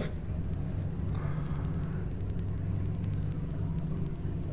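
Steady low rumble with a hum in a camera recording made inside a sewer tunnel, with no distinct events.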